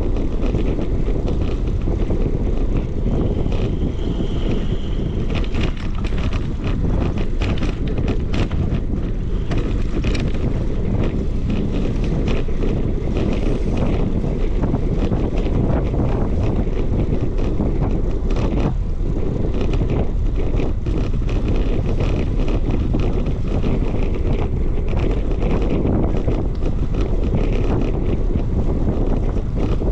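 Wind buffeting the microphone of a camera riding on a moving bicycle: a loud, steady, low rumble.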